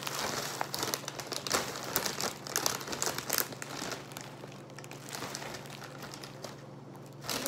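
Large plastic cereal bag being crinkled and handled, with a run of crackly rustles that thin out about four seconds in.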